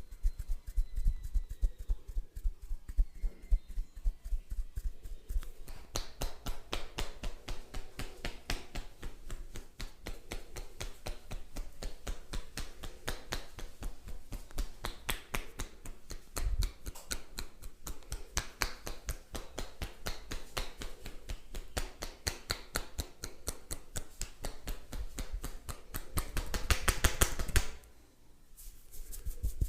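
Rapid, rhythmic sharp snaps and clicks from a massager's hands working at speed, several a second, breaking off for a moment near the end and then resuming.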